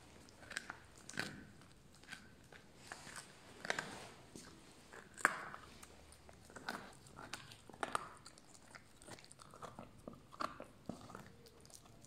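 Puppy gnawing on a big bone, with irregular crunches and sharp cracks of teeth on bone; the loudest crack comes about five seconds in.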